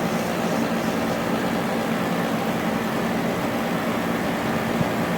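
1972 EQK Modulaire 10,000 BTU room air conditioner running: its fan blows steadily over a low, even hum from its Copeland compressor. The unit is cooling, its coils cold and sweating, which the owner takes to mean it still holds a full refrigerant charge.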